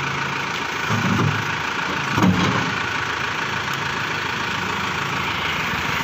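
Backhoe loader's diesel engine idling steadily, with two brief louder sounds about one second and about two seconds in.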